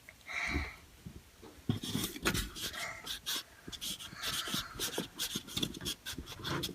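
Play-Doh being worked with plastic kit tools and handled on the table: a run of small clicks, taps and rubbing, after a short breath near the start.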